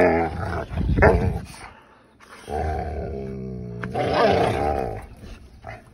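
Mastiffs play-fighting, growling and grumbling in drawn-out rumbles: loud bursts at the start, then after a short lull one long growl and another shortly after.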